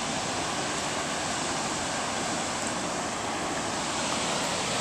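Steady rushing of a large waterfall, the Upper Falls of the Genesee River.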